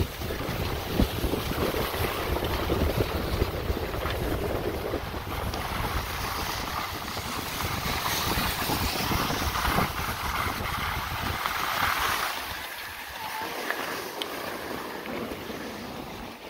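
Wind buffeting the microphone of a skier moving downhill, with skis hissing and scraping over packed snow. The low rumble of the wind drops away near the end as the skier slows.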